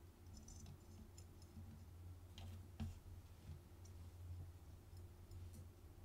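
Faint small clicks and ticks of a camera's circuit board and metal parts being handled and pressed into place, the sharpest click nearly three seconds in, over a low steady hum.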